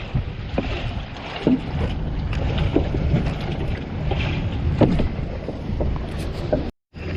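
Wind rumbling on the microphone over water lapping at a small fishing boat's hull, with scattered light knocks. The sound cuts out for a moment near the end.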